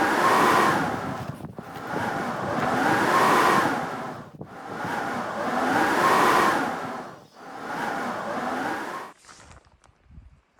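An engine revving up and easing off in four repeated surges, about one every two and a half seconds, which stop about nine seconds in.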